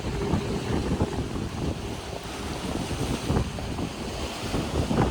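Wind buffeting the microphone in uneven gusts over the wash of ocean surf.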